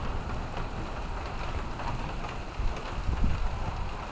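Rain falling steadily in a thunderstorm, with gusty wind rumbling, swelling twice near the end.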